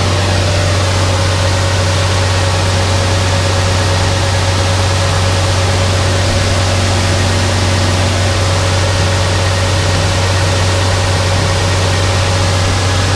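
Tractor engine running steadily, with a strong low hum, a constant whine above it and an even rushing noise.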